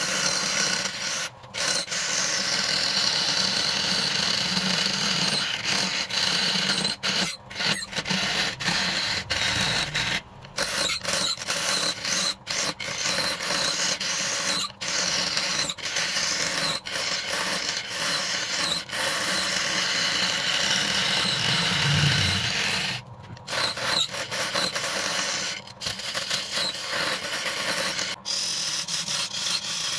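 Hand-held chisel cutting spinning wood on a wood lathe: a continuous hissing scrape as shavings peel off. It drops out briefly every few seconds when the tool is lifted from the wood.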